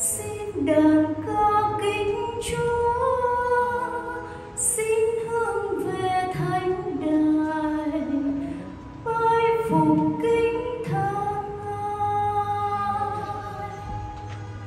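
A woman's solo voice singing a slow liturgical melody unaccompanied, notes held and moving step by step, in a large reverberant church.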